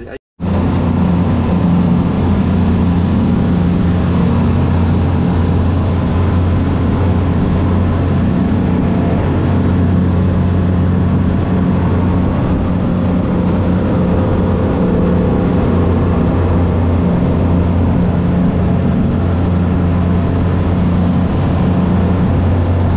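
Suzuki outboard motor running steadily at cruising speed as the boat planes, a constant low drone under the rush of the wake water.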